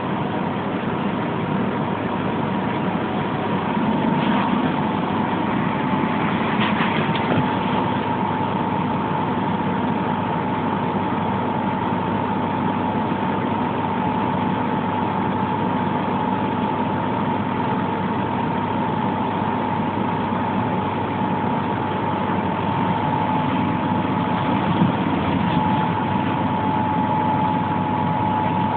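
Pesa 120Na Swing low-floor tram heard from inside the passenger saloon while running: steady running and rolling noise with a steady high electric whine held throughout and a low hum underneath.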